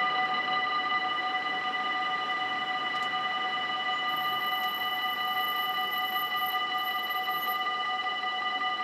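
Dutch level-crossing warning bell ringing steadily in several clear, unchanging tones, the signal that a train is approaching while the red lights flash and the barriers are down.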